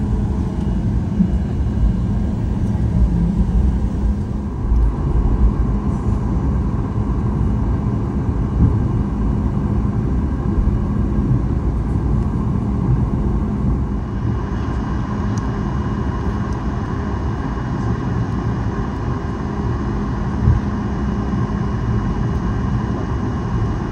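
Boeing 737 MAX 8 cabin noise on the ground: a steady low rumble from the CFM LEAP-1B engines at low power, with a faint steady whine above it.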